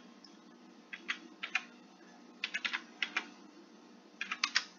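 Typing on a computer keyboard: keystrokes in three short runs of a few keys each, with pauses between, as a number is keyed into a form.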